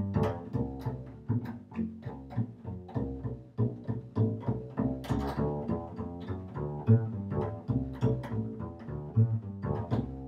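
Upright double bass played pizzicato in a fast jazz line, about three plucked notes a second, with a last note ringing out and fading near the end.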